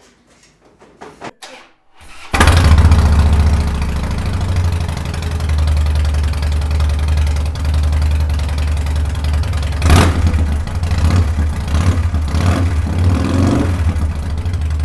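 2006 Harley-Davidson FXD's Twin Cam 88 V-twin, breathing through Vance & Hines Straightshot slip-on mufflers, is cranked and starts about two seconds in, then idles loudly with a steady low lope. Near the end it is blipped several times.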